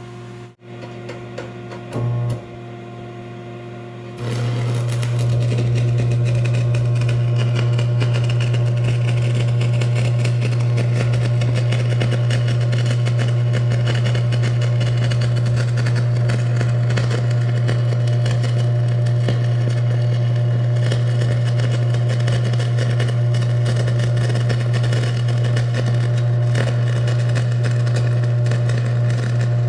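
Vulcan Commander 225 AC/DC transformer stick welder humming at idle. A brief strike comes about two seconds in, and about four seconds in the arc catches and burns steadily: a 7018 rod on DC positive, with a continuous crackle over the machine's loud, steady transformer buzz under load.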